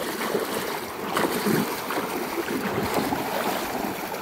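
Continuous splashing and sloshing of several people wading through shallow muddy floodwater, dragging livestock carcasses through it, with wind buffeting the microphone.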